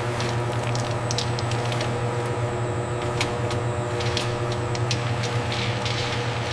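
Factory processing machinery running: a steady low hum with several steady tones above it, and scattered short clicks and hisses throughout.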